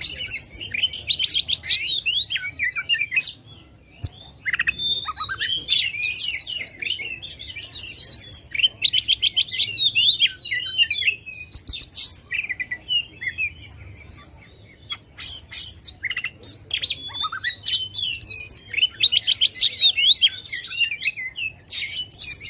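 Oriental magpie-robin (kacer) singing loudly in fast, varied phrases of whistles and trills, with a couple of short breaks. It is an agitated, full-voiced song of the kind used to rouse other magpie-robins.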